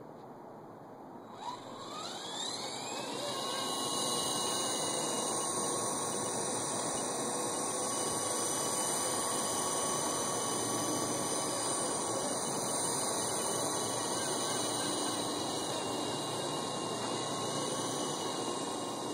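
Small RC helicopter's motor and rotors spinning up after a short click about a second and a half in: a whine rising steeply in pitch for about two seconds, then running steadily at a high pitch.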